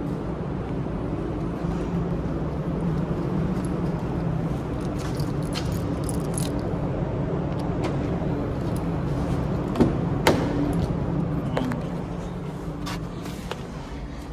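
Steady car noise: a low running hum with light clicks scattered through it and a sharp knock about ten seconds in, easing off near the end.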